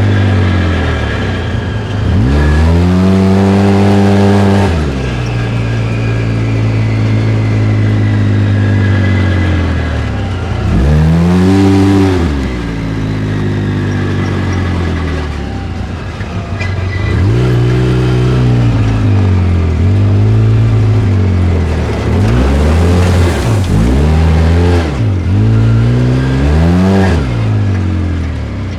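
Polaris RZR side-by-side's engine revving up and falling back several times, with a wooshing, grinding noise as it decelerates; the owner is trying to track down the cause of this noise.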